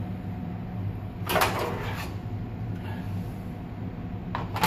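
A nonstick pan being handled on a gas stove's grate while an omelet is folded in it: a brief rustling scrape about a second and a half in, and a sharp knock of the pan near the end.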